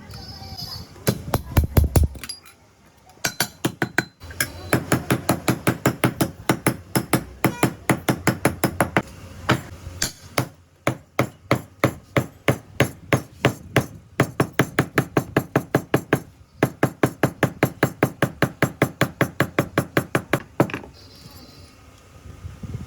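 A hammer beating a damaged wok: rapid, even blows, about four or five a second, with two short breaks.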